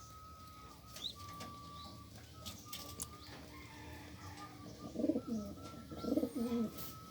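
Domestic pigeons cooing in the loft: two low, wavering coos in the second half, over a faint steady high whine.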